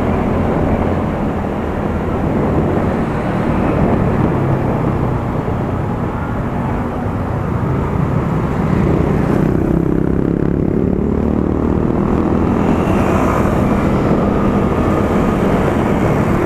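Small motorcycle engine running while riding through traffic, mixed with steady wind and road noise on the bike-mounted microphone; the engine note shifts about halfway through as the speed changes.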